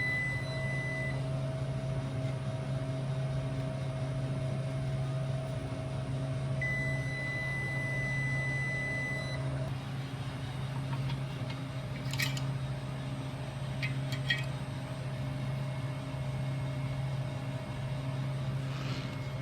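Steady low hum of the beer cooler's fan motor running while the compressor stays off, with a thin high beeping tone that sounds twice and a few short clicks of tools being handled later on.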